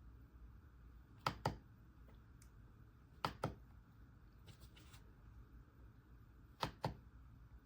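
Keystrokes on the RK Royal Kludge S98 mechanical keyboard with pale green tactile switches. A key is pressed three times, a couple of seconds apart, and each press gives two quick clacks, one going down and one on the release. A few fainter clicks fall in between.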